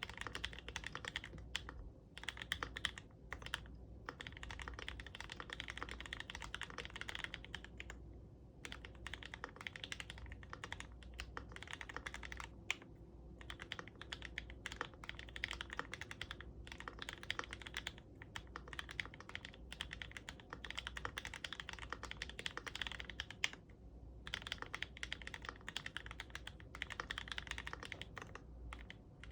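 Continuous fast typing on a GMMK Pro mechanical keyboard with fully lubed and filmed 43 Studio Popu 65 g switches and ABS keycaps: a dense stream of keystroke clacks, broken by a few short pauses.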